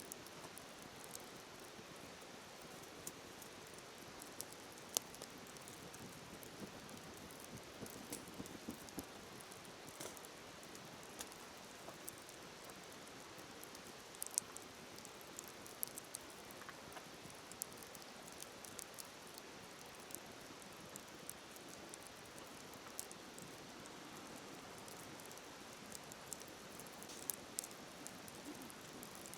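Wood fire crackling, with scattered sharp pops and snaps, over the steady hiss of a flowing river.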